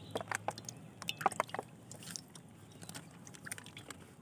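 Cooking oil being poured into a large metal karahi, heard as a run of short irregular splashes that thin out after about two seconds.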